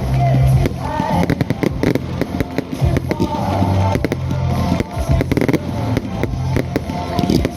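Fireworks going off in quick succession, a dense run of crackles and bangs, with music playing alongside.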